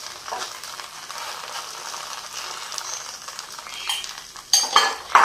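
A thin batter crepe sizzling in a ghee-greased nonstick pan while a spoon pushes and spreads chicken filling across it, with a few louder spoon scrapes and knocks near the end.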